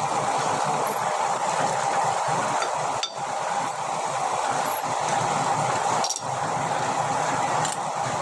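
Metal lathe running with an axle shaft spinning in its chuck: a steady mechanical whir with a constant whine, briefly broken twice.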